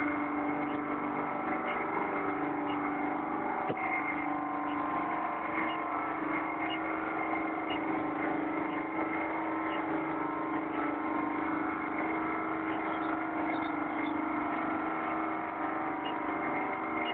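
A CO2 refrigerating plant's machinery running with a steady, many-toned hum. Faint ticks come about once a second from the handheld CO2 leak detector as it searches for escaping CO2.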